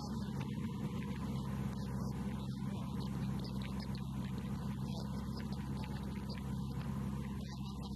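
Light aircraft's piston engine running steadily in flight, an even drone with no change in pitch.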